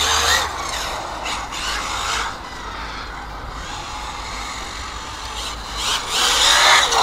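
A ZD Racing 08425 1/8-scale brushless RC buggy running on a 4S battery: motor whine and tyre noise from hard driving and quick left-right turns. It is louder at first, quieter in the middle, and louder again near the end.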